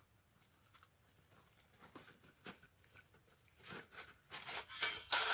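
Light clicks and taps, then a run of crinkling and rustling that is loudest near the end: a bag being handled while a folded sheet-metal camp stove is pulled out of it.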